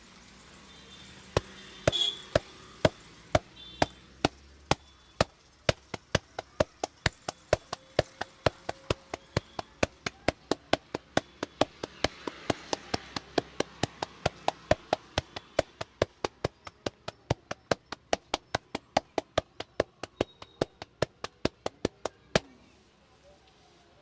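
A barber's hands striking a man's back and shoulders in a rapid chopping massage, each blow a sharp smack. The strikes start at about two a second, quicken to about four a second for most of the stretch, and stop abruptly near the end.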